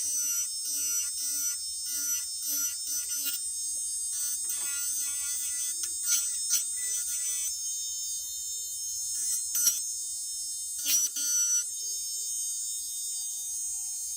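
Small high-speed rotary tool, most likely a dental lab micromotor handpiece, running with a steady high whine while it smooths the cut ends of a clasp wire. Rougher rasping comes and goes as the bur meets the wire, with a couple of sharp clicks in the second half.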